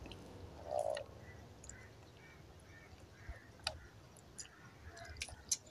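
Quiet, with a few faint scattered clicks from hands working a wet cotton bandage loose from a leg wound.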